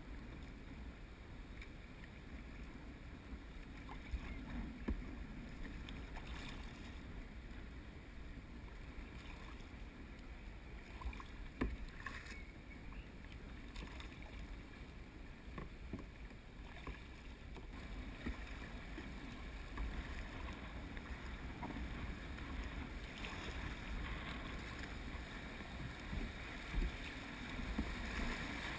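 Water sloshing and paddle strokes around a plastic sit-on-top kayak drifting down a shallow river, with a few sharp knocks. Near the end the rush of a shallow riffle grows louder.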